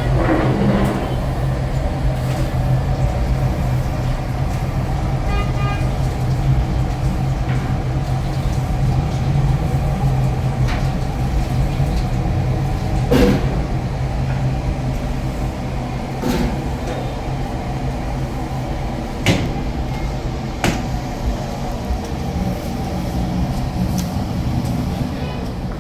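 A machine running with a steady low hum, with a few sharp knocks now and then.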